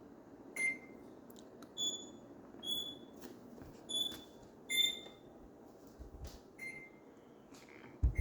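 Microwave oven's electronic beeper sounding about six short beeps at two pitches, one lower and one higher, in an irregular, tune-like pattern over a steady low hum. A brief thump near the end.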